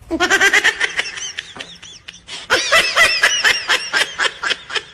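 Laughter in two long runs of quick ha-ha pulses, about six a second; the second run starts about halfway through.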